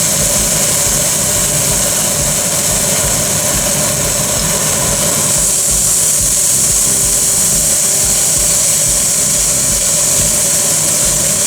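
Steady machine hum: a constant mid-pitched whine over an even hiss and low rumble, running unchanged.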